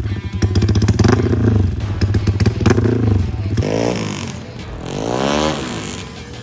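Motorcycle engine running steadily, then revved twice, its pitch rising and falling with each throttle blip.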